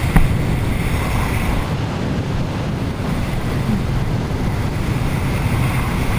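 Strong, gusty wind buffeting the microphone as a steady low rumble, with a brief knock just after the start.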